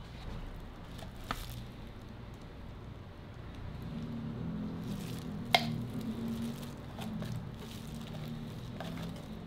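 Metal spatula spreading chocolate spread over a crepe, soft squishing scrapes, over a steady low hum. A sharp click comes about five and a half seconds in.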